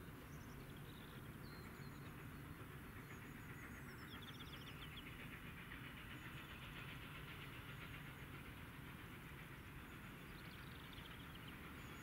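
LSWR T9 4-4-0 steam locomotive 30120 working in the distance, heard as a faint, steady low rumble as it approaches.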